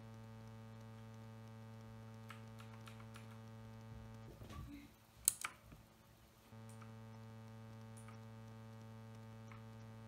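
Steady electrical mains-type hum with a few faint ticks. The hum breaks off for about two seconds in the middle, where keys of a mechanical keyboard with Outemu Blue clicky switches are pressed: a few soft clicks and one sharp click about five seconds in.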